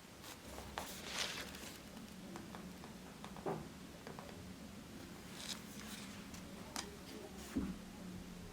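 Light handling sounds in a small room: scattered clicks and taps, a brief rustle about a second in and a few soft thumps, over a faint steady hum.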